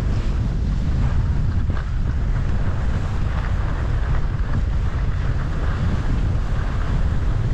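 Wind buffeting the microphone: a steady, loud low rumble with a fainter rushing hiss above it.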